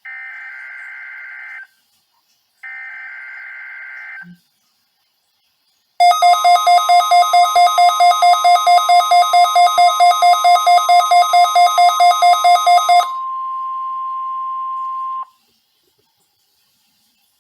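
NOAA Weather Radio weekly test signal: two short bursts of SAME digital header data, heard as harsh buzzing chirps. About two seconds later the 1050 Hz warning alarm tone starts, with a loud pulsing beep over it at about four pulses a second for some seven seconds. The steady tone then carries on alone for about two seconds and cuts off.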